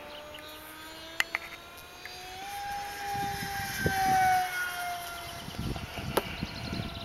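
Electric motor and propeller of a small RC Bf-109 warbird on a 4S LiPo, whining steadily high overhead at speed. Its pitch rises about two and a half seconds in, it is loudest around four seconds in as it passes, then the pitch drops slightly.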